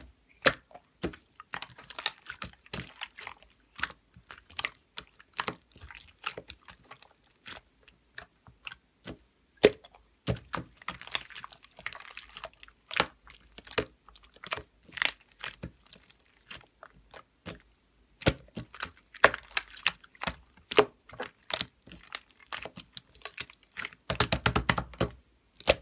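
Marbled slime being squished, folded and pressed by hand, making irregular sticky clicks and pops that come in dense clusters.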